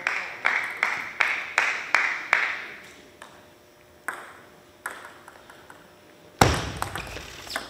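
Celluloid-type table tennis ball bounced steadily on the table, about two and a half ringing clicks a second, for the first two and a half seconds. A few fainter ball clicks follow, then a loud sudden sound about six and a half seconds in.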